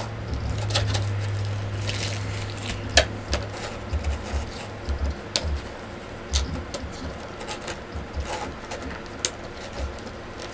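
Small plastic figure parts and packaging being handled: scattered light clicks and taps, with a sharper click about three seconds in, over a low hum.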